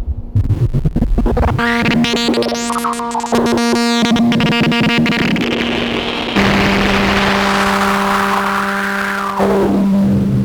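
Synthesizer tone from an analogue oscillator through the Djupviks Mörser WASP-style filter: a buzzy held note whose brightness sweeps up and down, with clicks and gritty noise from the module's clocked digital noise source. About six seconds in the note drops lower under a wash of hiss, and near the end the filter closes down and the upper overtones fall away.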